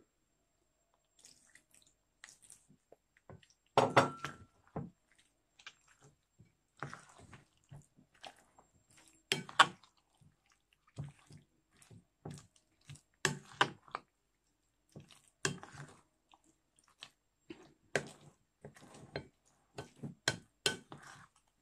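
Fork stirring a thin gram-flour batter in a glass bowl: irregular wet squelches with sharp clicks of the fork against the glass.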